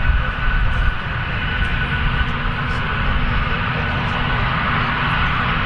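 Antonov An-124's four D-18T turbofan engines running as the aircraft moves along the runway: a steady jet noise with a low rumble and a constant high whine.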